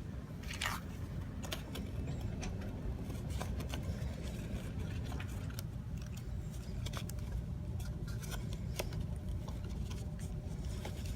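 Scissors snipping and the crinkle and rustle of a short piece of silver foil tape being cut and wrapped around two LED leads: scattered small clicks and scrapes over a steady low hum.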